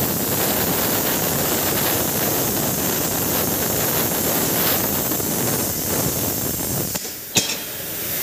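Hand-held plasma cutter cutting through steel plate: a steady loud hiss from the arc and its air jet. About seven seconds in the cutting sound drops away, followed by a single sharp clank.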